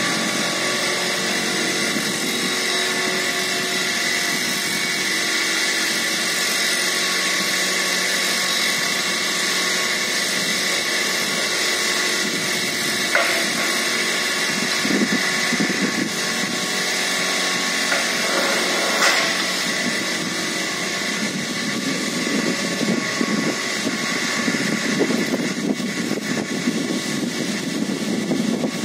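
Vibratory piling hammer on an excavator arm driving a steel sheet pile into the ground, a steady high-pitched mechanical whine under the machine's engine. A few short knocks come about halfway through, and in the second half the sound turns rougher and lower as the pile sinks.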